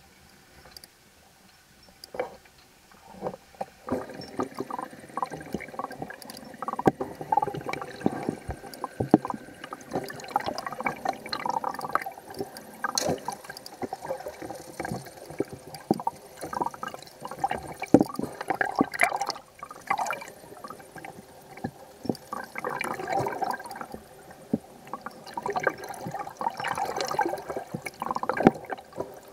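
Water gurgling and sloshing around a camera held underwater, with many irregular clicks and knocks, starting about two seconds in.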